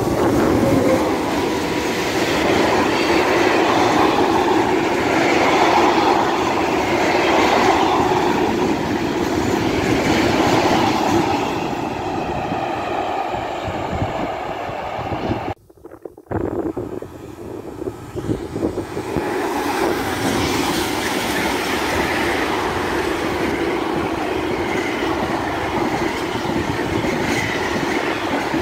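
Freight trains passing close: the steady running noise of wagon wheels on the rails. First an SNCF BB 26000-series electric locomotive with a train of tank wagons. The sound breaks off abruptly about halfway through, then a second freight train of Lohr low-floor wagons loaded with road trailers rolls past.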